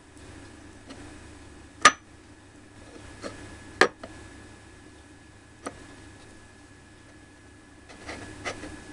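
Small sharp clinks and taps of a miniature plate and glass bowl being handled, a few single ticks a couple of seconds apart and a cluster of lighter taps near the end.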